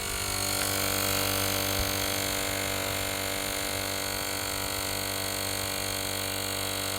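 Lulizar 12V cordless tyre inflator's compressor motor running with a steady hum. It is stuck on and will not switch off, and it is burning itself out. The sound cuts off abruptly at the end.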